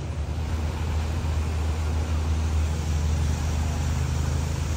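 Steady rain falling, an even hiss, over a constant low rumble.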